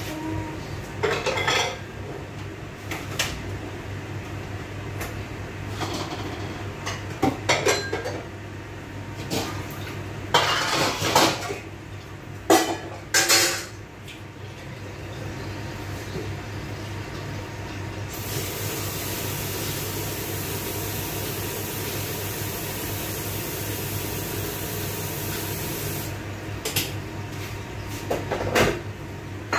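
Pots, dishes and utensils clattering and clinking in scattered bursts through the first half. Then comes a steady rush of running tap water for about eight seconds, cut off abruptly, and another clatter near the end. A low steady hum runs underneath.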